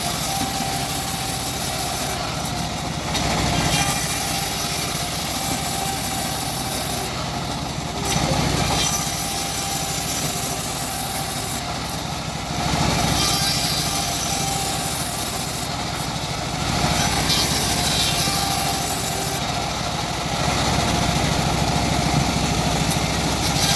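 Homemade engine-driven bandsaw mill running while it saws a teak log, its sound swelling and easing every few seconds.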